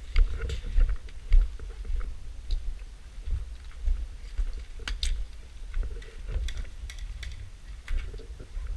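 Wind rumbling on the microphone, with irregular sharp clicks and crackles scattered through it.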